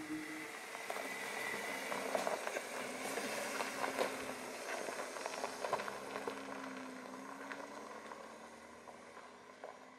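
BMW X5 SUV driving off over a gravel track: tyres crunching with many small stone pops and crackles, the engine running faintly underneath. It fades steadily as the car pulls away.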